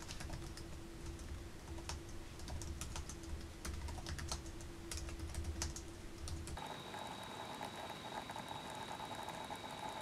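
Fast typing on a laptop's built-in flat-key keyboard: a quick, uneven run of light key clicks over a faint steady hum, whose pitch changes about six and a half seconds in.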